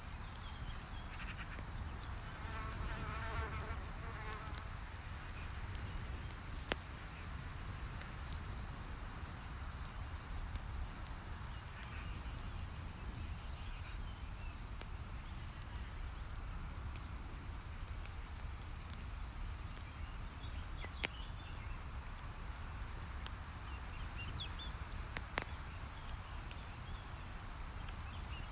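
Campfire crackling, with a few sharp pops over a steady low rumble and hiss. About two seconds in, a fly buzzes past for a couple of seconds.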